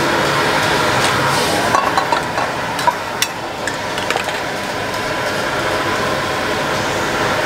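A spoon and chopsticks clinking a few times against a ceramic bowl of soup as the food is arranged, about two to four seconds in, over a steady background hum.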